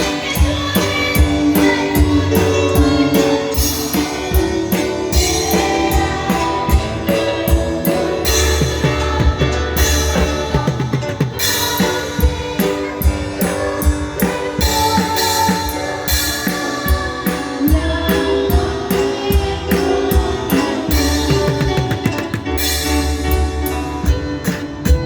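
Music with a drum kit and guitar, with a steady beat.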